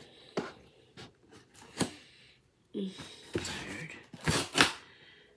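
Handling of a doll's cardboard-and-plastic box: a few sharp taps and rustles, then a short spoken word and loud breathy sounds near the end.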